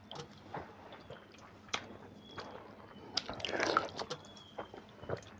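Wet squishing and small splashes of a hand mashing water-soaked rice (basi pakhala) in a steel bowl, mixed with chewing. The loudest burst comes about three and a half seconds in.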